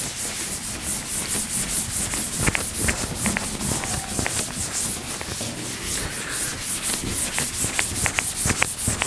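Chalkboard duster wiping chalk off a blackboard in brisk back-and-forth scrubbing strokes, about four a second, with a few sharp taps of the duster against the board.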